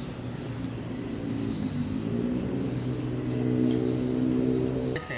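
Steady chorus of crickets and other insects, a high continuous shrill, over a low steady hum that stops abruptly near the end.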